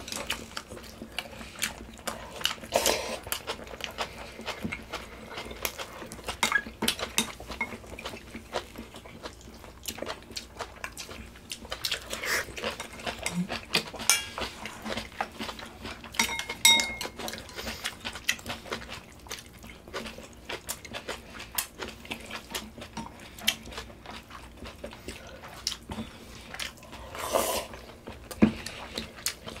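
Eating pork-bone soup: cutlery clinking and tapping against bowls in frequent small clicks, mixed with chewing and a few longer slurps.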